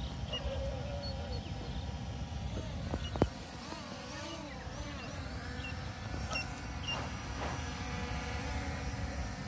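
Small toy camera quadcopters' propeller motors whining, the pitch wavering up and down as the M3 Max is steered, with one sharp click about three seconds in.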